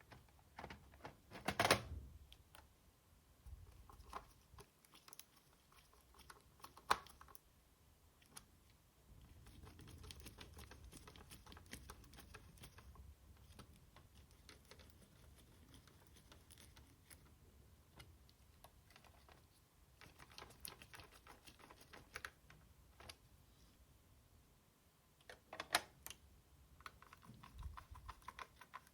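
Light clicks and taps of PS4 Slim console parts being handled and fitted back together, with a few louder knocks and stretches of quick, keyboard-like clicking.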